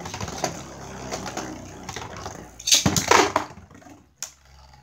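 Beyblade spinning tops whirring and grinding on a plastic stadium floor, with a louder clattering burst about three seconds in, after which the sound drops away to a faint whir and a single click.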